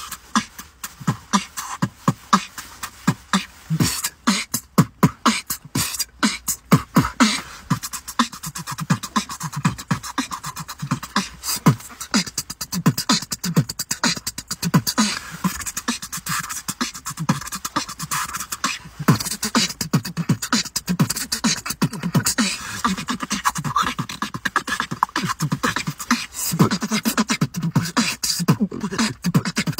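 Human beatboxing: a fast, continuous stream of mouth-made drum sounds, sharp clicks and strikes, with hummed, gliding pitched tones woven in beneath them.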